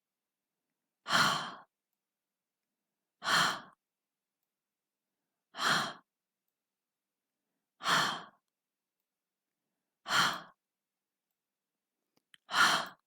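A woman saying the phonics sound for the letter h: a breathy, voiceless "hh" huff, as if out of breath, repeated six times about two seconds apart.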